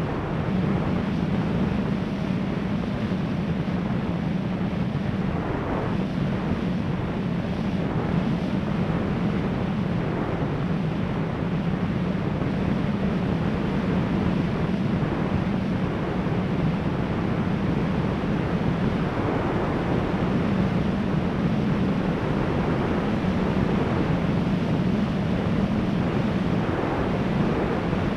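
Electric motor and propeller of an RC plane running steadily in cruise flight, heard through the onboard camera with wind rushing over the microphone.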